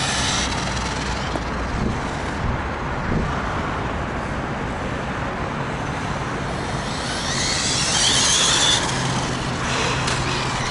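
Arrma Infraction 6S RC car's brushless motor and tires on a full-speed run: a high whine that rises and grows loud about seven seconds in, then cuts off just before nine seconds, over a steady rush of noise.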